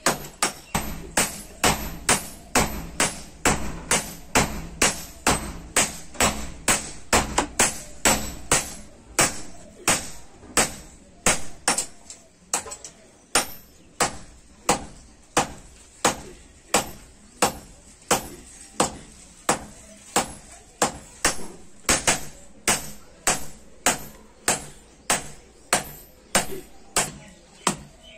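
Hand-forging blows: a hand hammer striking a red-hot billhook blade on a small steel anvil, steady and rhythmic at about two blows a second, each a sharp metallic clink with a short ring.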